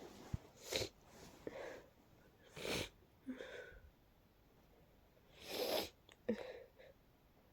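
A person's congested, breathy sneezes from a head cold, in a fit. The two strongest come about a third of the way in and again near the three-quarter mark, with smaller breathy sounds between them.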